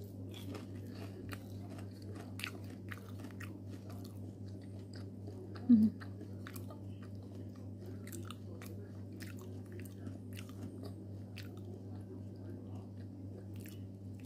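Close-up chewing of crispy fried shrimp, with many short crisp crunches over a steady low hum. One brief, louder low sound comes a little before the middle.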